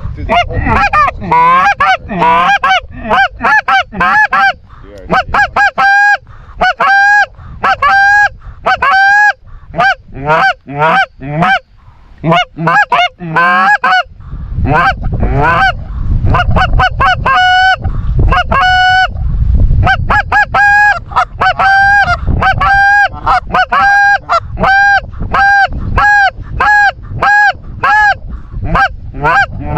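Goose honks and clucks in fast, nearly continuous runs, loud and close, several notes a second. A low rumble runs under the calls for several seconds around the middle.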